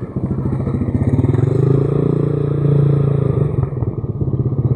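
Motorcycle engine running with a fast pulsing beat, picking up a little in the middle; the owner hears a strange noise in it.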